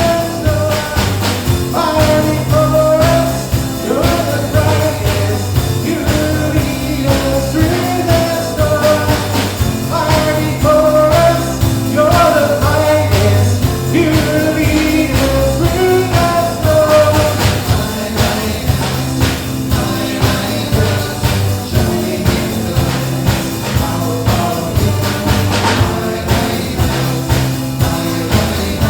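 Church worship band playing a song with a steady drum beat and bass, with a voice singing the melody.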